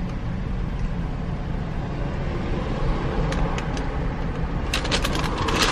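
Steady low rumble of a car heard from inside the cabin, with a paper bag crinkling briefly near the end.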